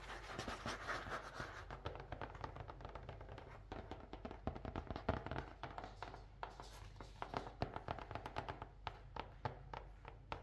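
Loose pages and thin card cover of a cheap sketchbook that has come apart being handled and squared up, with irregular light taps and paper rustles, busier in the second half.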